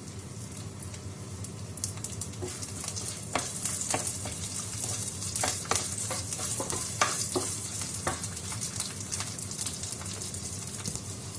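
Sliced onions and whole spices sizzling in hot oil in a clay pot. From about three seconds in until about eight, a spatula scrapes and knocks against the pot as the onions are stirred.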